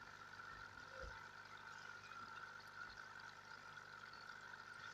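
Faint steady hum with a light trickle of water from the fish tank; one soft knock about a second in.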